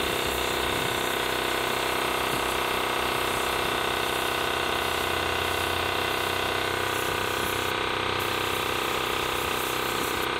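Air-powered paint spray gun in use, over the steady mechanical drone of the compressor feeding it. The gun's high hiss breaks off briefly twice near the end, as the trigger is let go.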